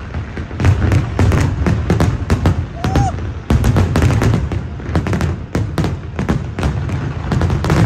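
Fireworks display finale: aerial shells bursting in rapid succession, a dense barrage of overlapping bangs and crackles over a continuous low rumble, swelling louder about a second in.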